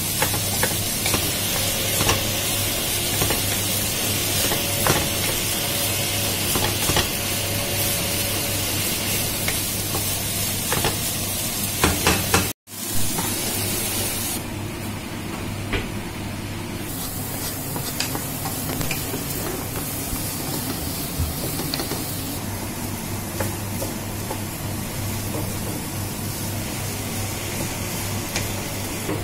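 Diced celery, onion and carrot sizzling in a frying pan, with a wooden spatula stirring and scraping through them, over a steady low hum. After a break about twelve seconds in, the sizzle goes on more softly under a glass lid, and the stirring resumes near the end.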